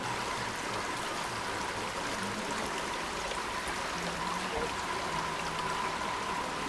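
Steady rushing noise of flowing water, with a faint steady high hum behind it.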